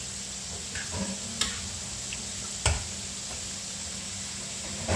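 Food sizzling in a wok over a gas flame, with a metal spatula knocking against the wok a few times.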